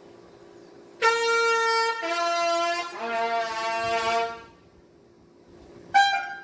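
Military bugle call on a brass bugle or trumpet: three long notes, each lower than the last, then a short higher note near the end.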